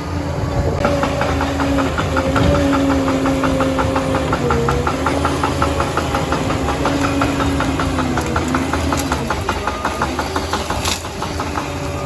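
Liebherr PR 746 crawler dozer's diesel engine running steadily, with a rapid, even clanking of the steel tracks as the machine moves; the clanking starts about a second in and stops near the end.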